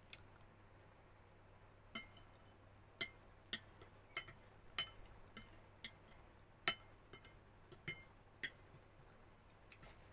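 Metal fork clinking and tapping against a ceramic plate while gathering up pasta: a series of sharp clinks at irregular intervals.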